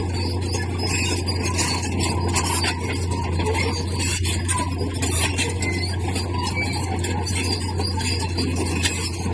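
Bulldozer at work: a steady low engine drone under continuous grinding, scraping and squealing, as from steel tracks and blade working over stone.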